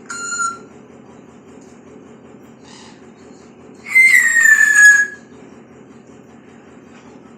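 Pet parrot whistling: a short whistle right at the start, then a loud, longer whistle about four seconds in that slides slightly down in pitch.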